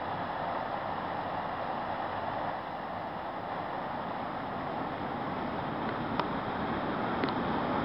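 Steady rushing of flowing creek water, with two faint clicks near the end.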